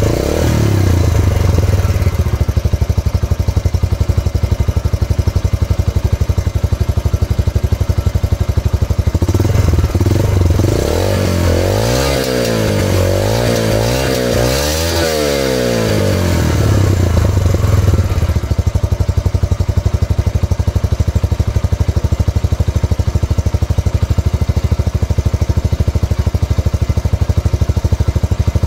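Yamaha YB125Z DX's 125 cc single-cylinder four-stroke engine idling steadily during a sound test. About ten seconds in, the throttle is blipped in several quick revs over some six seconds before the engine settles back to idle.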